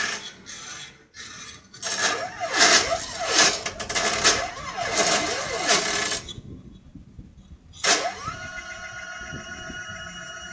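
Stepper motors of a homemade Arduino-controlled CNC pen plotter driving the pen head. Their whine glides up and down in pitch as the axes speed up and slow down. After a short pause and a click about eight seconds in, a steady whine holds.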